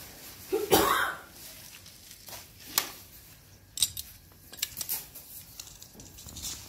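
A pipe wrench and a brass pipe fitting being handled: a few sharp clicks and knocks. A louder, short rasping sound comes about three quarters of a second in.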